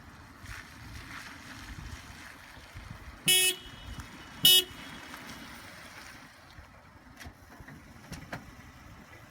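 A car horn tooting twice, two short blasts about a second apart, over a low steady rumble of vehicle noise.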